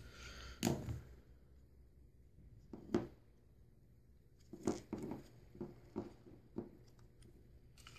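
Faint, scattered clicks and taps from a string trimmer's plastic recoil starter being handled, its pulley turned by hand an extra round to put more tension on the recoil spring.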